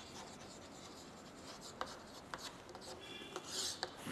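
Chalk writing on a chalkboard: faint taps and short scratches as letters are formed, with one longer, louder scratching stroke near the end.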